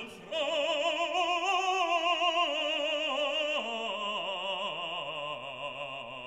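Background music: an operatic voice sings long sustained notes with wide vibrato, the melody stepping down in pitch.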